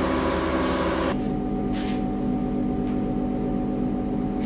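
Dual-action (DA) sander on a plastic bumper repair: the rasp of the pad on the surface stops about a second in. A steady machine hum carries on after that, with a couple of short hisses.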